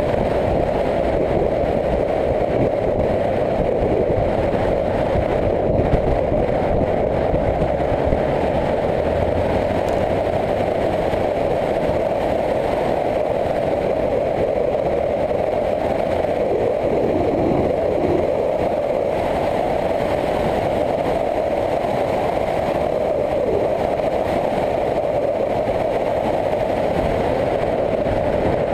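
Onboard sound of a motorcycle cruising: a steady engine note mixed with wind and road noise, holding an even level without revving or gear changes.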